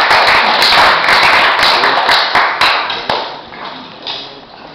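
Small audience applauding, dying away after about three seconds.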